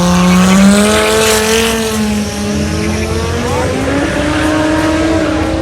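Cars accelerating hard in a drag race, engines revving high. One engine note holds and sinks slowly, then a second one climbs in pitch about halfway through.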